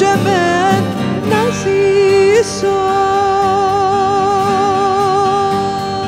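Live acoustic music from a woman's voice, acoustic guitar and viola. The melody bends through a few notes, then settles on one long held note from about two and a half seconds in, over the guitar accompaniment.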